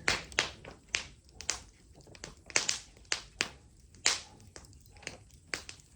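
Wood fire crackling and popping: sharp, irregular snaps, some louder than others, at uneven intervals.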